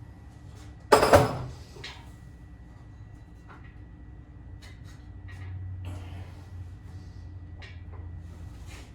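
A single loud bang about a second in, with a short ringing tail, followed by scattered light knocks and clicks.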